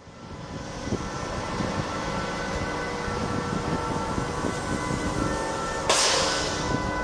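Stationary Alstom TGV Duplex power car idling at the platform: a steady hum with faint steady tones from its running equipment. About six seconds in, a sudden hiss rises and dies away over about a second.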